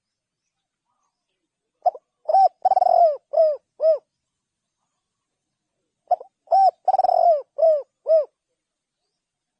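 Spotted dove cooing: two phrases of about five notes each, with a longer rolling note in the middle, about four seconds apart.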